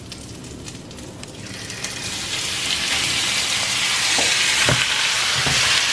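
Marinated beef cubes hitting hot rendered beef tallow in a frying pan. A loud sizzle builds up about a second and a half in and keeps going steadily, with a few soft knocks near the end.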